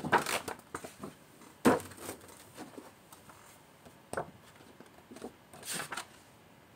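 Pages of a paperback sheet-music book being flipped and the book handled, paper rustling in short bursts, with a sharper slap of the book about one and a half seconds in.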